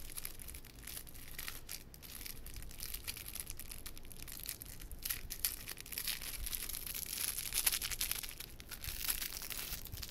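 Packaging crinkling and tearing in a dense run of small crackles as a dry-erase marker is worked out of it.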